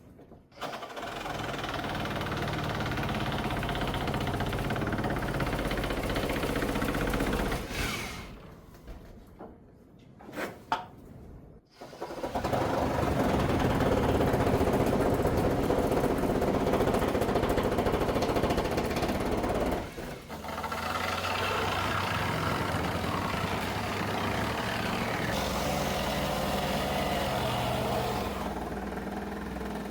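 Power saw running through cuts in three long runs, with short pauses between them.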